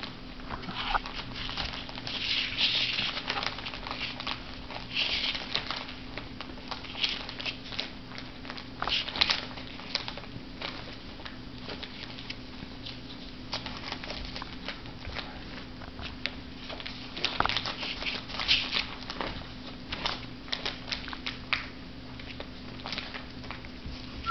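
Shih Tzu puppies rummaging in a pile of paper and plastic bags: scattered crinkling and rustling with small taps and clicks, over a steady low hum.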